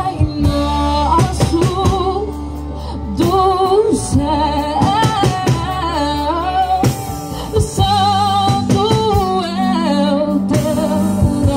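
A woman singing a gospel song live, holding notes with a strong vibrato, over instrumental accompaniment through the stage PA.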